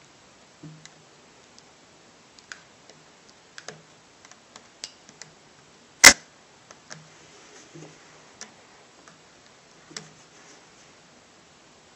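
Small scattered clicks and ticks of a screwdriver working the mounting screws of a netbook's LCD panel in its metal frame, with one much louder sharp click about six seconds in.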